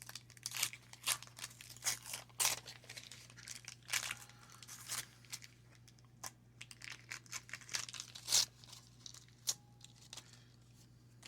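Waxed-paper wrapper of a 1990 Donruss baseball card pack being torn open and crinkled: an irregular run of rips and crackles.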